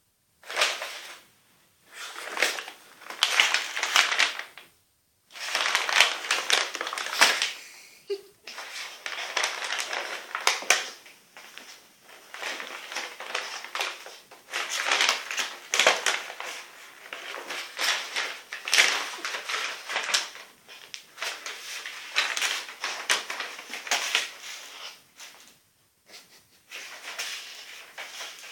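A paper takeaway bag crumpling and rustling in irregular bouts as a cat wrestles with it, bites at it and pushes inside it, with brief pauses between the flurries.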